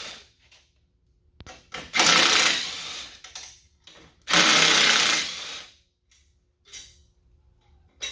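Cordless power driver with a 10 mm socket spinning out bolts from a plastic bumper's inner structure, in two runs of about a second and a half each, about two and about four and a half seconds in.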